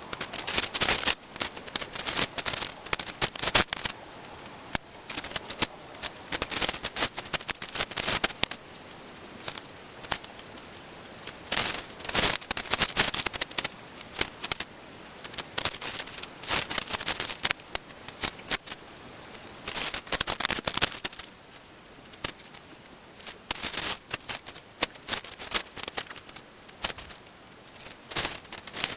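Irregular bursts of crisp crunching and crackling handling noise, coming in clusters with short quieter pauses between them.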